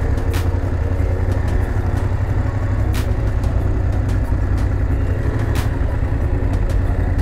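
Motorcycle engine running steadily at low speed, heard from on board the bike, with a sharp tick about every two and a half seconds.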